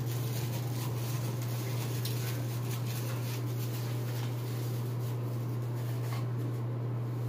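A steady low hum with faint rustling and small clicks of things being handled.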